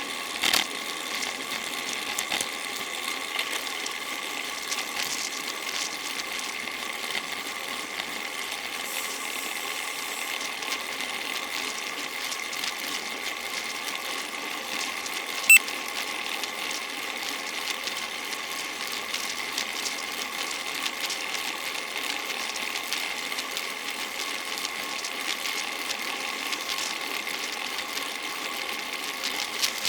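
Steady whirring and ticking of a bicycle's drivetrain and tyres while riding, with one sharp click about halfway through.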